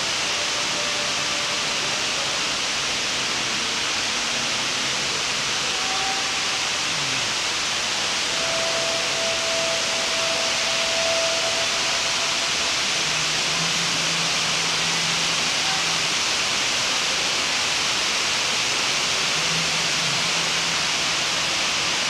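Indoor waterfall: a sheet of water cascading down a four-storey wall into the pool below, a steady even hiss.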